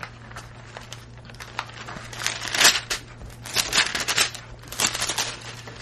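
Pages of a Bible being leafed through: irregular flurries of rustling, crinkling paper, busiest in the middle and near the end, over a steady low hum.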